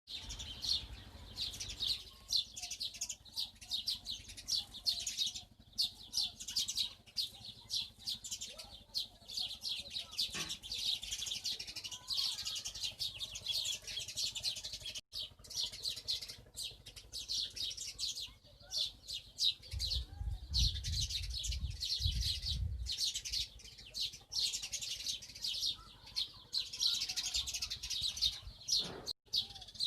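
Small bird chirping rapidly and without pause, a dense run of quick, high chirps. A low rumble comes in for a few seconds about two-thirds of the way through.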